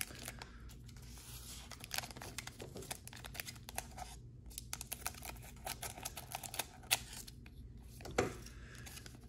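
Foil trading-card pack crinkling in the hands and being snipped open with scissors: a run of small crackles and clicks, with a sharper snap about seven seconds in and another near the end.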